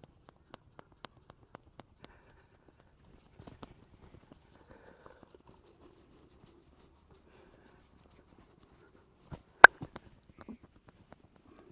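Hand massage on the head and back: light taps about four a second at first, then soft rubbing, and one sharp, loud click about two-thirds of the way through.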